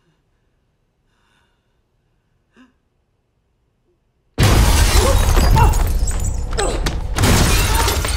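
Near silence with a few faint small ticks, then about four seconds in a sudden, loud crash of shattering glass that runs on as several seconds of loud crashing noise.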